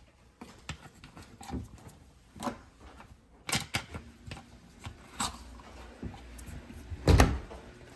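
Scattered light clicks and knocks of things being handled, with one louder thump about seven seconds in.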